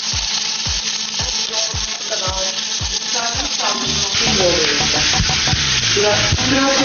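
Ribs searing in a cast-iron pan over high heat: a steady, loud sizzle. Background music with a steady beat runs under it, its melody coming up more strongly about halfway through.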